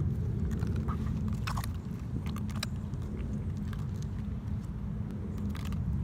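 Hands squishing and kneading homemade slime with dirt in it, giving small wet clicks and crackles over a steady low rumble.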